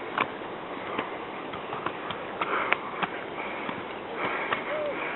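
Footsteps of slippers on a hiking path's steps, a sharp slap every half second to second, with heavy breathing over a steady hiss.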